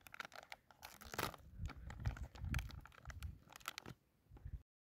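Plastic food packet crinkling and crackling as it is handled and torn open: a quick run of sharp, crisp rustles that cuts off suddenly near the end.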